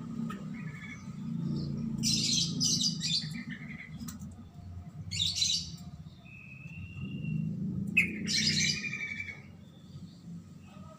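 Black-naped oriole calling: three bursts of harsh, raspy chirps, about three seconds apart, with a short clear whistle between them, over a low steady hum.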